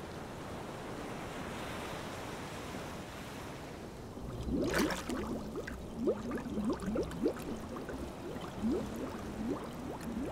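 Water sound effect: a steady rush like surf, then a sudden splash about halfway through, followed by bubbling, many short rising blips.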